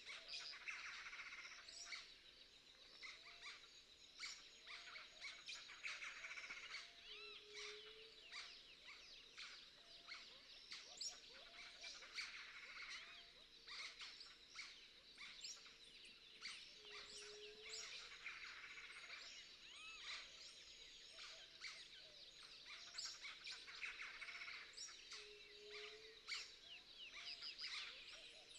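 Many small birds chirping and singing at once in a dense, continuous chorus of quick twitters, with a lower short call coming back about every nine seconds.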